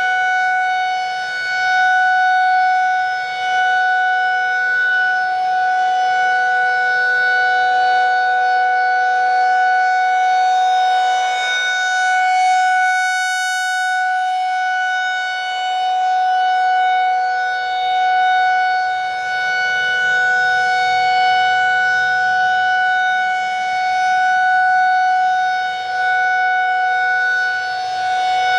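Federal Signal 2001-SRN rotating outdoor warning siren sounding a steady tone at full speed. Its loudness swells and fades every few seconds as the rotating head sweeps around.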